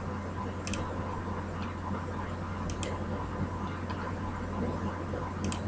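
Steady low electrical hum and hiss of a desk microphone's background noise, with a few faint clicks: one about a second in, a pair near the middle, and a pair near the end.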